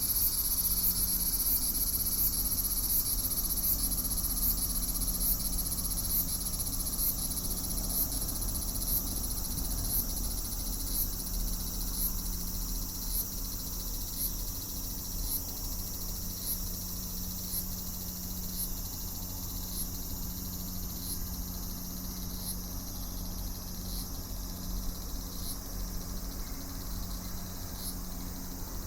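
Summer insect chorus of cicadas: a steady high shrill with a short high chirp repeating about one and a half times a second. The broader hiss of the chorus thins out over the second half.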